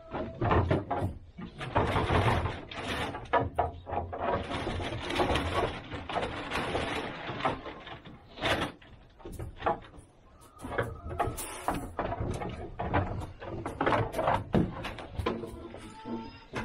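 Goats jostling in a wooden pen: repeated knocks and scrapes of hooves against the boards, amid stretches of rustling and shuffling.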